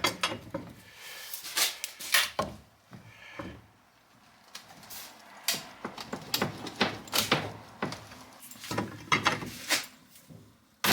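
A metal bolt and an acrylic gear knob being handled and worked: irregular clicks and knocks, with a short lull about four seconds in, as the bolt is used on the knob's threaded insert to try to get it out.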